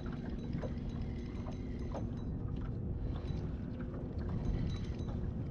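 Wind buffeting the microphone and water lapping against an aluminium fishing boat's hull, with a faint steady hum and a few light scattered clicks.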